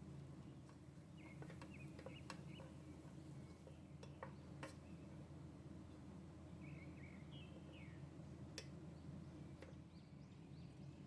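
Near silence: a low steady hum with a few faint sharp clicks and faint short chirps scattered through it.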